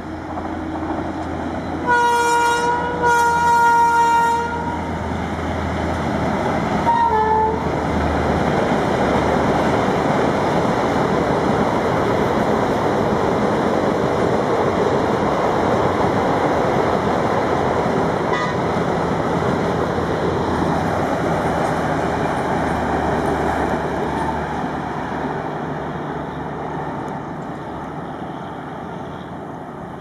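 WAP-7 electric locomotive's horn sounding two blasts about two seconds in and a short third toot near seven seconds, followed by the steady rush of a long passenger train running past at around 100 km/h, which swells and then fades away toward the end.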